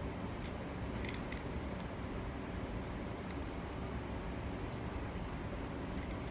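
Steady low background hum, with a few faint light clicks, the clearest about a second in, of small handling noises.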